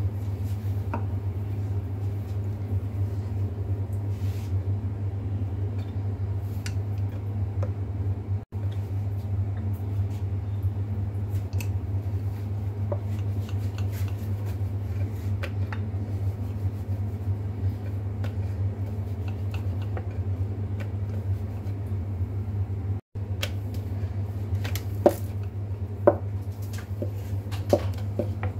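Wooden rolling pin rolling out momo dough on a wooden board: soft rolling with scattered light taps, and a few sharper knocks near the end, over a steady low hum.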